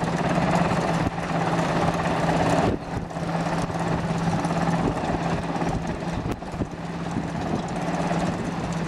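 Sikorsky S-92 search-and-rescue helicopter hovering, its turbines and main rotor running with a steady low hum over a broad rushing noise.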